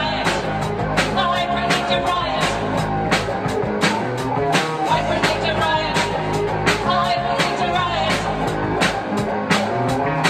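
Live rock band playing: electric guitar, bass guitar and drum kit with several voices singing together over a steady drum beat.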